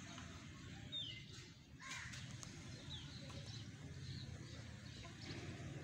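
Faint outdoor bird calls: a few short, high chirps scattered through, and a harsher call about two seconds in, over a low steady background rumble.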